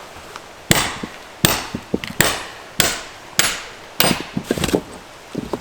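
Axe chopping oak firewood: seven sharp strikes about two-thirds of a second apart, each followed by small knocks of wood.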